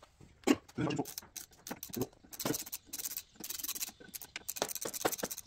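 Ratchet wrench running down the clutch pressure-plate bolts on a VW 1300 Beetle's flywheel: short bursts of rapid ratchet clicking, with a sharp click about half a second in.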